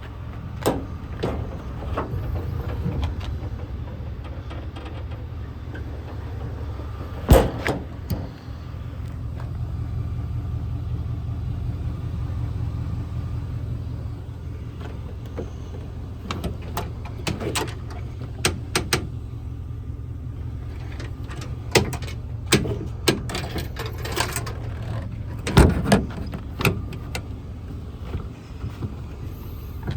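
A Ford 6.2-litre gas V8 idling steadily as a low hum. Scattered sharp clicks and knocks sound over it, the two loudest about seven seconds in and near the end.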